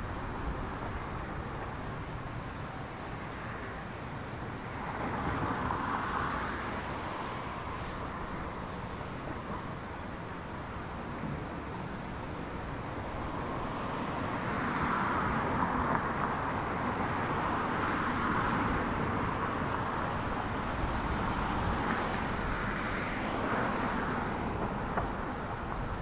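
Cars passing on the road alongside, their tyre and engine noise swelling briefly about five seconds in and again, for longer, from about fourteen seconds in.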